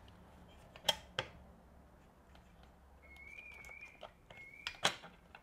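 Sharp plastic-and-metal clicks from handling the lower blade guard of a DeWalt DCS570 circular saw: two about a second in and another near the end. Between them comes a faint, wavering, whistle-like squeak lasting about a second and a half.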